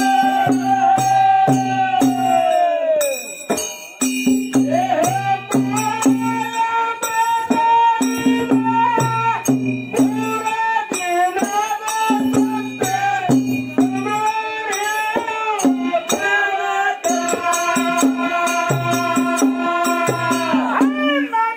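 Kannada dollina pada folk song: a male voice sings long, gliding lines, one note held for a few seconds and then falling away near the start, over a steady rhythmic accompaniment of dollu drum and jingling hand cymbals.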